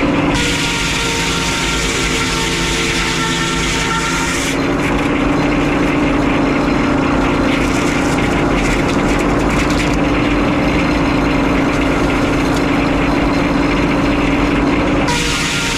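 Frick 01-C circular sawmill running steadily, its power unit and spinning head saw making a constant hum. The sound changes about four and a half seconds in, with less hiss and a fine rapid rattle, and shifts back near the end.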